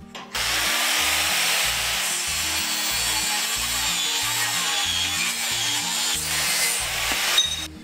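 Angle grinder cutting into a steel flat bar held in a bench vise, running steadily under load. It starts about a third of a second in and cuts off suddenly shortly before the end.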